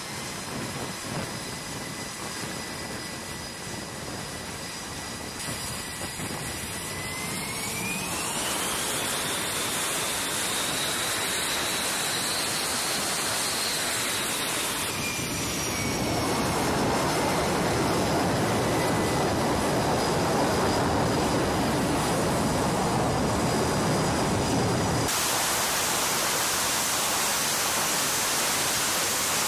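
F/A-18 jet engines running with a high whine. About seven seconds in the whine rises in pitch as the engines spool up, and from about sixteen seconds the jet noise grows louder as power comes up with the jet hooked to the catapult.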